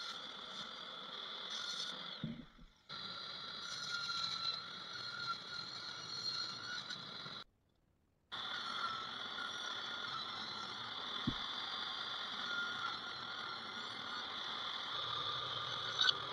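Power saw running as it cuts plywood panels, a steady high whine with some scraping and rattling. It drops out briefly near the start and again about halfway through.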